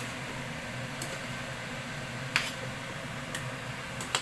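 Cooking utensil knocking against a nonstick wok as stir-fried noodles are tossed: a few sharp clicks about a second apart, the loudest about two and a half seconds in, over a steady hiss.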